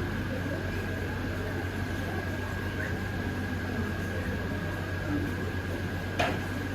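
Steady low electrical hum with a thin high whine over a background hiss, and a single sharp click about six seconds in.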